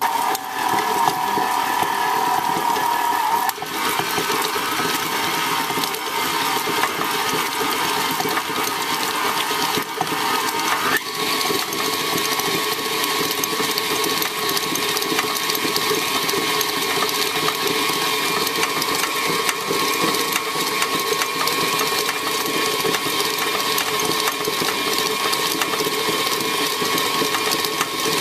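Electric stand mixer running steadily, its flat beater churning and tearing cooked chicken breasts into shreds against a stainless steel bowl. The motor's whine shifts in pitch about eleven seconds in.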